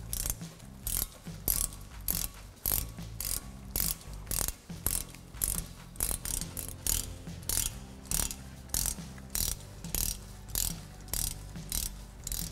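Hand ratchet fitted with a 7 mm Allen bit backing out a brake caliper slide bolt, its pawl clicking on each back-swing in a steady rhythm of nearly two strokes a second.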